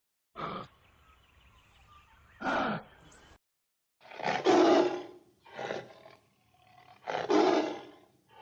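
A series of animal roars: a short one, then a louder one, then after a brief break several long roars of about a second each, the loudest two near the middle and near the end.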